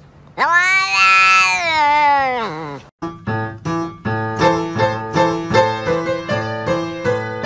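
A cat's single long meow, lasting about two and a half seconds, rising and then falling in pitch as it trails off. At about three seconds in it cuts off and light instrumental music with plucked, bouncy notes takes over.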